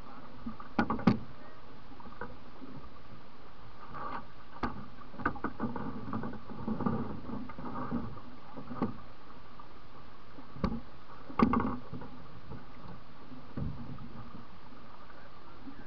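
Irregular knocks and clunks on a canoe's hull, close and loud, over the steady rush of shallow river water flowing past. There are two quick knocks about a second in, a scattered run from about four to nine seconds, and the loudest clunk at about eleven and a half seconds.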